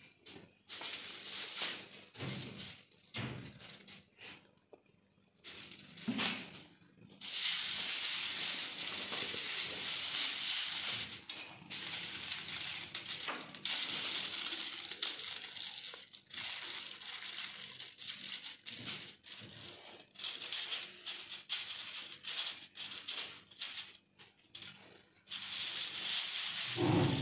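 Aluminium foil crinkling and rustling in bursts as it is folded and pressed by hand around a fish.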